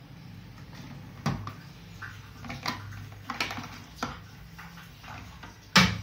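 Hard clear plastic being handled: an LED-tube enclosure and a plastic cover on a washing machine. It gives a scattered series of clicks and knocks, the loudest one near the end, over a steady low hum.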